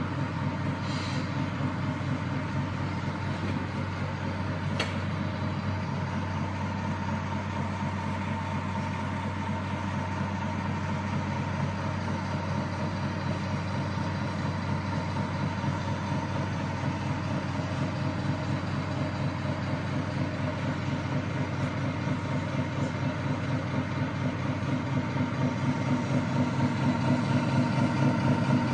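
RC Scania R730 model truck's sound module playing a simulated V8 engine idle through its small speaker: a steady, fast-pulsing low rumble that grows louder near the end.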